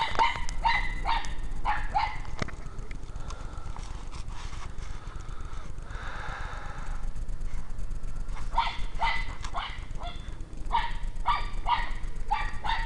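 A dog barking in quick runs of short, high barks: about six in the first two seconds, then two more runs after a pause of several seconds.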